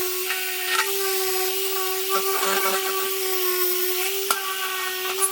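Electric disc sander running steadily with a high whine and a gritty hiss as it sands the edges of the sheet-metal fender deck smooth, with a few scrapes and clicks. Near the end it is switched off and the whine falls in pitch as it spins down.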